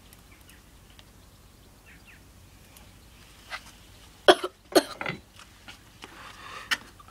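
A teenager coughing hard, a few short coughs about four seconds in, choking on a dry spoonful of ground cinnamon during the cinnamon challenge.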